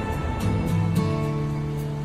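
Soft background music with sustained held notes and a light, steady tick-like beat.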